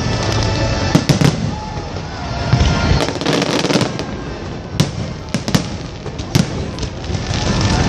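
Fireworks display: repeated sharp bangs and crackling of shells bursting, with a constant rumble and clatter of the show between them.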